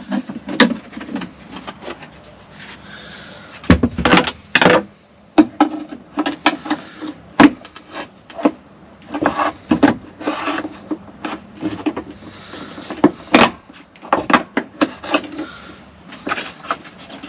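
Plastic interior trim panel of a Jeep Wrangler JL's rear cargo area being pried and pulled by hand, giving an irregular run of sharp clicks, knocks and rubbing scrapes as its retaining clips work loose. The loudest knocks come about 4 s in and again near the end.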